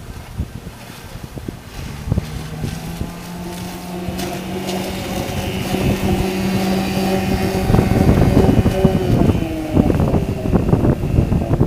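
Small outboard motor on an inflatable boat running at speed, growing louder over several seconds, its pitch dropping past the eight-second mark as it goes by. Wind buffets the microphone.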